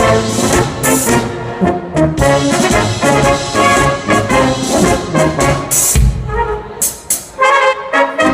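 Brass band playing a polka, trumpets and trombones carrying the tune over a steady rhythmic accompaniment, with a brief drop in volume about seven seconds in.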